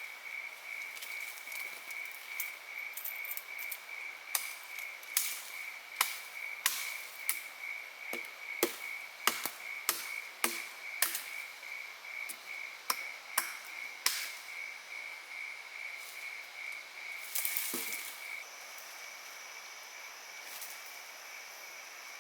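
Forest insects calling: a steady, evenly pulsing trill, joined near the end by a second, higher steady buzz. Through the middle a series of sharp, irregular knocks or taps sounds over them.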